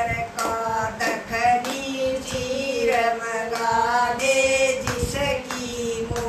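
Women singing a Haryanvi folk bhajan together, clapping their hands in time with the song.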